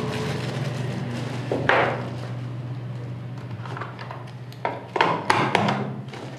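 Plastic clicks and knocks as a lithium-ion cell is fitted into the battery compartment of a rechargeable mini table fan and the compartment is closed. There is one loud knock about two seconds in and a quick run of clicks near the end, over a steady low hum.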